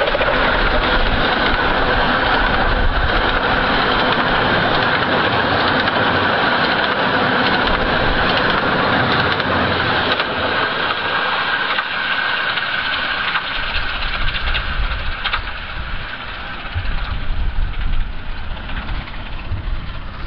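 Miniature 15-inch gauge steam train running by: a steady rush of steam and wheels rolling on the rails, easing off after about ten seconds. Wind buffets the microphone near the end.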